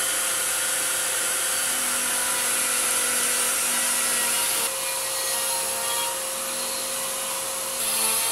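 Router mounted on a PantoRouter running steadily with a constant whine while cutting a mortise in eucalyptus. The sound drops slightly about halfway through and picks up again near the end.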